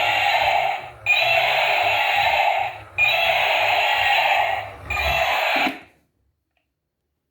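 Electronic sound effect from a toy vehicle's built-in speaker: a loud, steady alarm-like tone played in repeated blocks of about two seconds with short breaks, cutting off about six seconds in.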